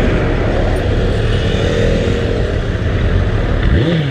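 Motorcycle engine running at low speed in slow traffic, a steady loud rumble. Near the end comes a short sound that rises and then falls in pitch.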